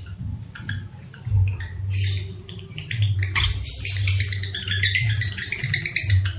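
Lovebird chattering in fast, high-pitched repeated notes: scattered calls at first, then a dense run of rapid chatter from about three seconds in, over a low hum.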